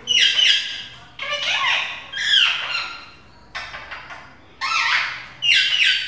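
Pet rose-ringed parakeet giving a run of about six loud, harsh screeching calls, each under a second long, with gliding pitch.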